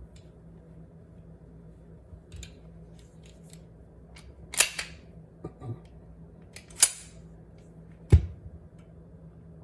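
Metal parts of a 1911 pistol being handled while it is taken apart: scattered small clicks, then three sharp metallic clacks, about midway, two seconds later and near the end, the last with a thump like a part set down hard.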